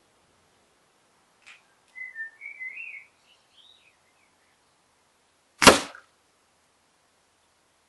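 A single sharp crack from a .22 air rifle shot, the loudest sound, a little over halfway in. Before it a small bird sings a short warbling phrase, and there is a faint click.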